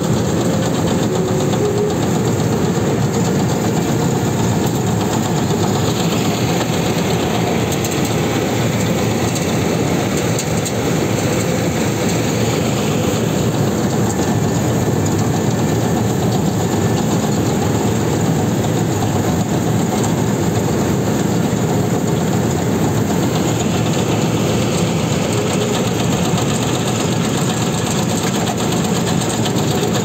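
Small rice harvester running steadily under load as it cuts standing rice, its engine noise mixed with a fast, continuous clatter from the cutting and reel mechanism.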